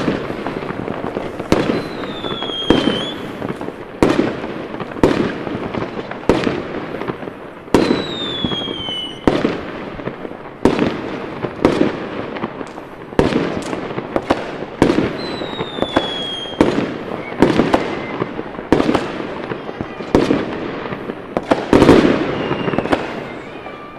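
New Year's Eve fireworks: a steady run of aerial bursts, a bang every second or so, each trailing off, the loudest near the end. Three times a whistle falls in pitch among the bangs.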